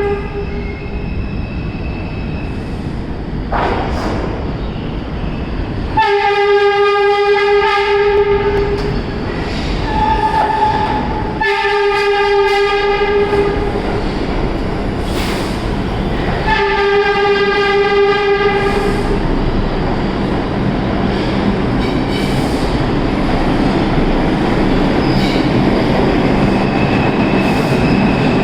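R142 subway train sounding its horn in three long blasts a few seconds apart as it runs through a station without stopping. The horn is followed by a steady rumble and wheel clatter as the cars pass.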